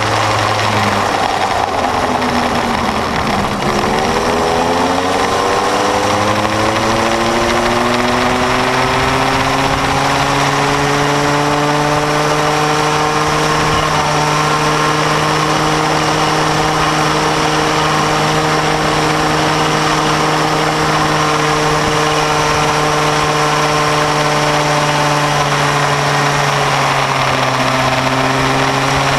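Small two-stroke engine of a bambino go-kart, heard onboard, revving under load through a lap. The revs drop about three seconds in as the kart slows, then climb steadily for several seconds as it accelerates. They hold at a steady high pitch, then dip briefly near the end and rise again.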